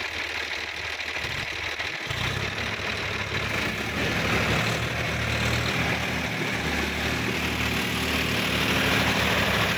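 Tractor diesel engines running under load as a blue tractor tows a mud-stuck Swaraj 855 FE out by chain; about two seconds in a deeper, stronger engine note comes in and holds steady, getting a little louder toward the middle.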